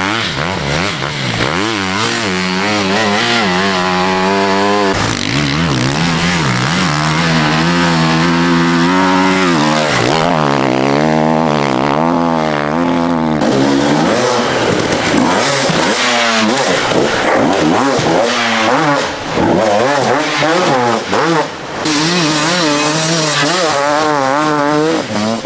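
Enduro dirt bike engines revving hard in sand, their pitch rising and falling over and over as the throttle opens and closes.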